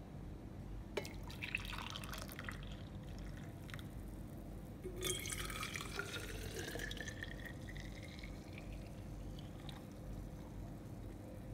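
Hot coffee poured from a Technivorm Moccamaster glass carafe into a mug, then into a stainless steel vacuum flask. About halfway through, the pour into the flask starts and its pitch rises steadily as the flask fills.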